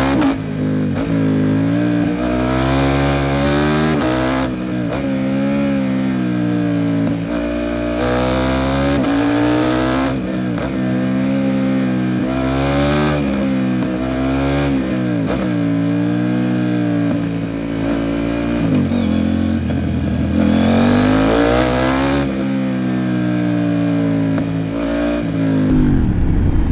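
KTM 790 Duke's parallel-twin engine through an Arrow Pro Race titanium exhaust, accelerating and backing off again and again through the bends, its pitch climbing and dropping with each gear change. Near the end the engine note falls away under a low rumble.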